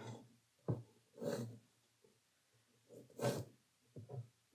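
Two short breaths through the nose, about two seconds apart, with faint pencil strokes on rough watercolour paper around them.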